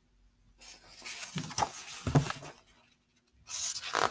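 Paper pages of a picture book rustling as the book is handled and its pages turned, with a few soft knocks. It comes in two stretches, the second, louder one starting about three and a half seconds in.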